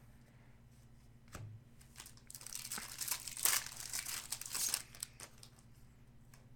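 Foil wrapper of a trading card pack being torn open and crinkled, in a run of crackling from about two seconds in to about five seconds, after a single knock.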